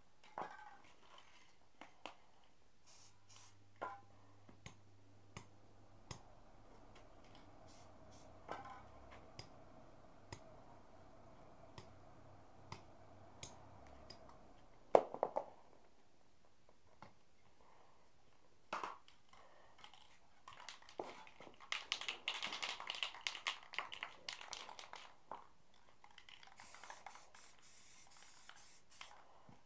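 Spray-paint cans being handled: scattered clicks and knocks, one sharp knock about halfway, and a dense clatter for a few seconds. Near the end comes the hiss of an aerosol spray can spraying paint.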